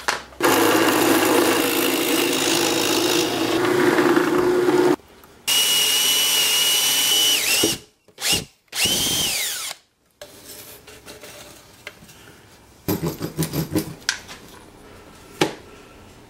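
Cordless drill boring into a block of 2x4, in two long runs under load, the motor whine winding down at the end of the second, followed by two short bursts. Later comes a quick series of short strokes and a single click.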